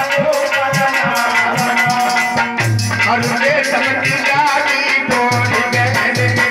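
Live devotional song: a man singing over an electronic keyboard, with a steady drum beat and rattling percussion, amplified through microphones and loudspeakers.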